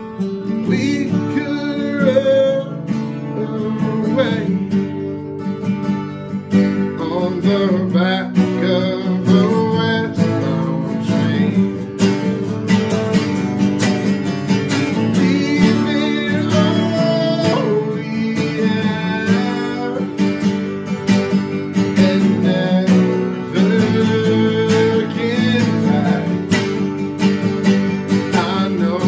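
Two acoustic guitars strummed and picked together, playing a song's chords in a steady rhythm.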